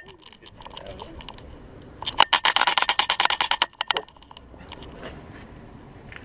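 Rapid clicking and rattling of the dog-mounted camera and its harness as a Siberian husky runs. A loud burst lasts about two seconds in the middle, with lighter scattered clicks before and after.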